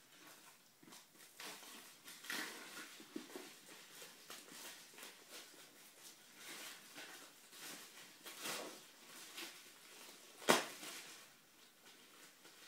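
Hardcover books and their cardboard slipcases being handled: scattered rustling and scraping, with one sharp knock about ten and a half seconds in.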